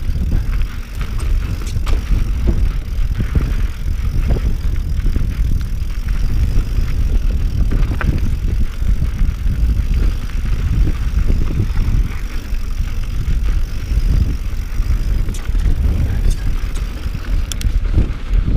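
Mountain bike riding over rocky singletrack: tyres rolling on rock and the bike rattling, with many scattered clicks and knocks over a heavy, steady rumble from wind on the microphone.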